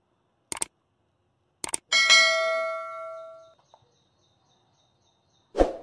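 Subscribe-button sound effect: two quick mouse clicks, then a bright bell ding that rings out over about a second and a half, and a short whoosh near the end.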